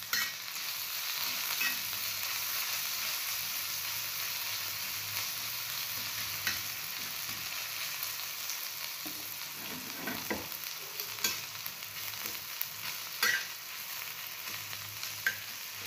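Chopped onion, carrot, green chilli and beans sizzling in oil and ghee on a hot tawa as they are stirred. Now and then the stirring utensil clicks against the pan.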